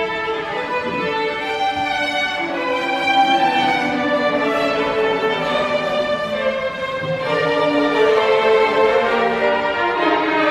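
Violin music: a melody of long, sustained bowed notes, changing pitch about once a second.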